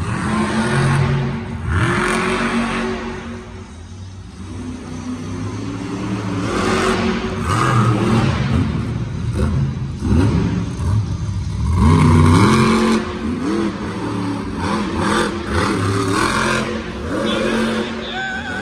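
Monster truck engine revving hard, several times over, each rev a sharp climb in pitch, the loudest about twelve seconds in.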